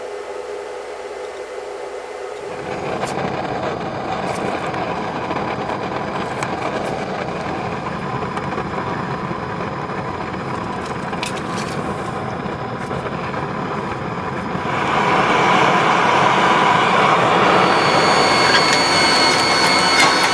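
Gas forge burner running with a steady roar while a Damascus billet heats to forge-welding temperature. It grows louder about fifteen seconds in, and a steady high whine joins near the end.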